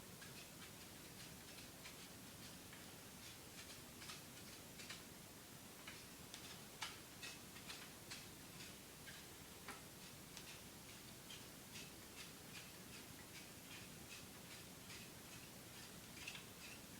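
Faint, irregular light clicks and taps from a paramotor cage's top pole being handled and screwed into place, over quiet room tone.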